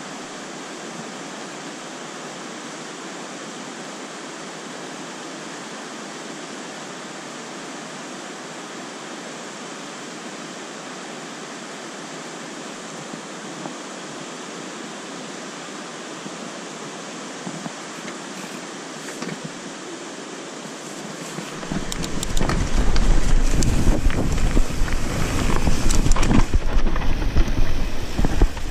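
Steady rushing of a white-water mountain river. About 22 s in, louder, gusty wind rumble on the helmet camera's microphone takes over, with the mountain bike clattering over a rough dirt trail as it starts riding.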